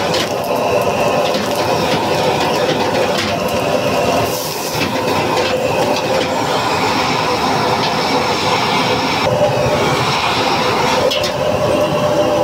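High-output gas wok burner running with a loud, steady rushing flame, under food sizzling in a carbon-steel wok. A metal ladle clanks against the wok now and then.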